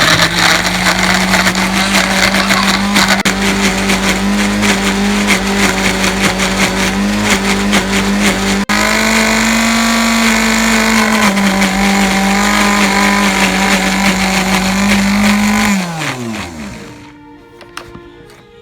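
Electric blender motor running at high speed, grinding, with its pitch rising slightly for a couple of seconds midway. Near the end it is switched off and spins down in a falling whine.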